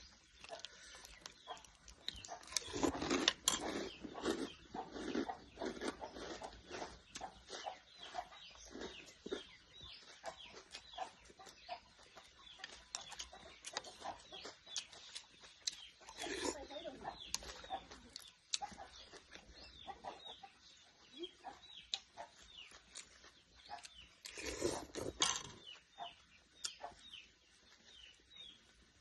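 Chickens clucking and calling on and off, in short irregular sounds with louder bursts a few seconds in, about halfway through, and shortly before the end.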